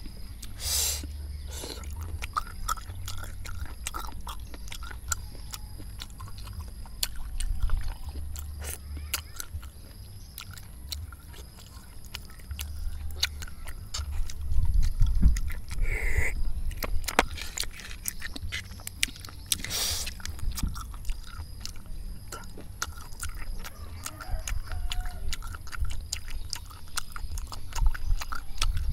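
Close-miked eating of spicy fried snails: chewing, with frequent small clicks as the snail shells are handled and knock together in the metal pan.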